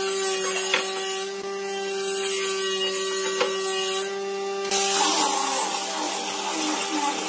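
Electric angle grinder with a sanding pad running with a steady whine. About five seconds in, a rougher sanding hiss joins as the pad is worked across the wooden boards.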